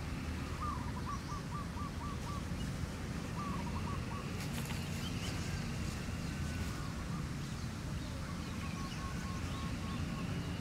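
A bird calling a quick run of short, slightly falling notes, about five a second, twice in the first few seconds and faintly again near the end, over a steady low background rumble.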